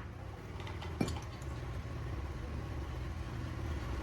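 A steady low machine rumble, with one sharp metallic clink about a second in.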